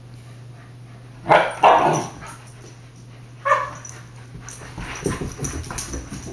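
Husky-type puppies barking in rough play: two sharp barks about a second and a half in and another near the middle, then a scatter of scuffles and thumps as they dash about.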